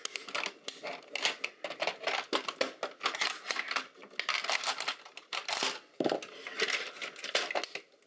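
Plastic housing of a laptop docking station clicking and cracking in a quick, irregular run as it is pried and pulled apart by hand, its clips and seams giving way.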